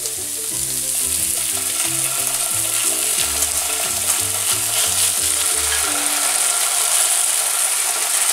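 Diced pumpkin and chard still sizzling steadily in a hot frying pan on its residual heat, the gas just turned off, while béchamel is spooned in.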